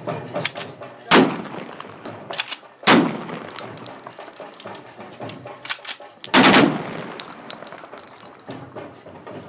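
Rifle fired into the air: three loud shots, a single one about a second in, another about two seconds later, and a longer, louder one a few seconds after that, each trailing off in an echo. Smaller sharp clicks are heard between the shots.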